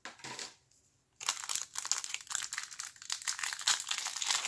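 Clear plastic wrapper of a trading card hanger pack being pulled open and crinkled by hand: a brief rustle at the start, then from about a second in, dense continuous crinkling.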